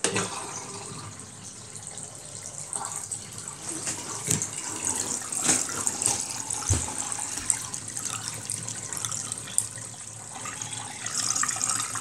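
Wash water draining by gravity from a portable twin-tub washing machine through its drain hose into a bathroom sink: a steady running and splashing of water, growing louder near the end. A few light knocks sound in the middle.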